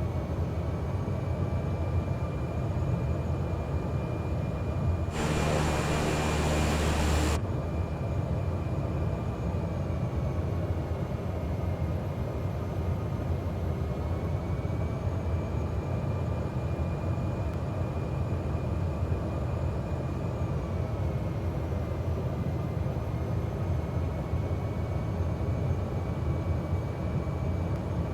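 Cessna 208 Grand Caravan's PT6A turboprop engine and propeller running steadily as heard in the cabin: a low drone under a high turbine whine that dips slightly in pitch twice. About five seconds in, a harsh buzz cuts in over it for about two seconds.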